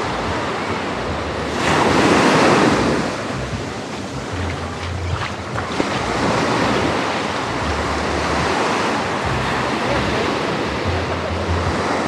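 Small shore-break waves breaking and washing up a sandy beach, with one louder surge about two seconds in. Wind rumbles on the microphone.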